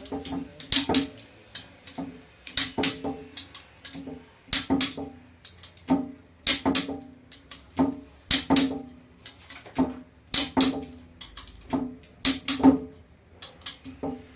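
Background music with a percussive beat: clusters of sharp, pitched hits repeating evenly about every two seconds.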